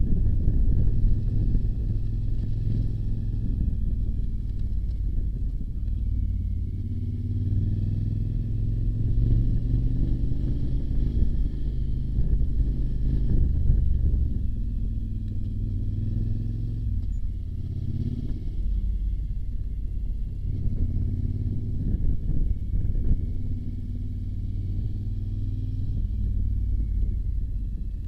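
Motorcycle engine running under way, its note shifting with the throttle and dropping then climbing again about two-thirds of the way through.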